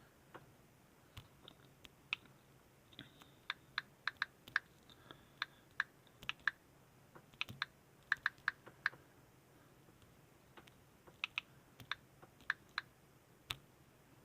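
Computer keyboard typing in short irregular bursts of keystrokes, with pauses between them.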